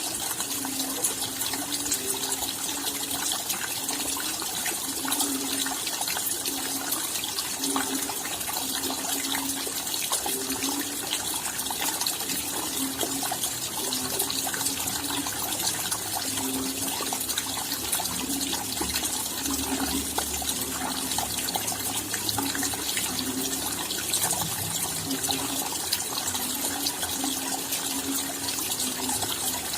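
Steady rain falling at night: a dense, even patter of raindrops with countless small drop ticks. Short low notes recur irregularly throughout.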